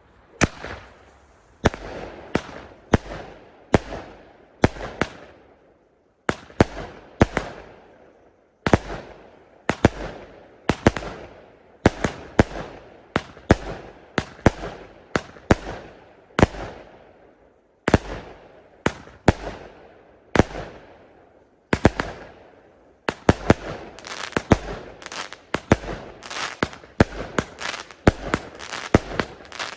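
Fireworks going off: sharp bangs, each trailing off into a crackling tail, coming about a second apart with a few brief pauses, then quickening into a rapid volley of bangs near the end.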